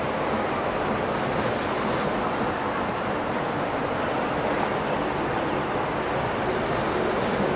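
Steady rush of water and wind on the microphone, with a faint boat engine hum underneath.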